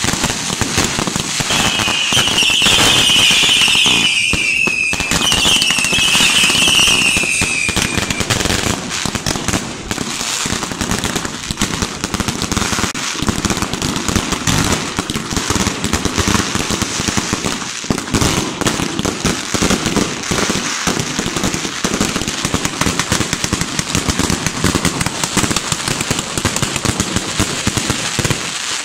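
Dense, continuous fireworks: rapid bangs and crackling with no let-up. Two whistling fireworks, each sliding down in pitch, sound a couple of seconds in and again a few seconds later.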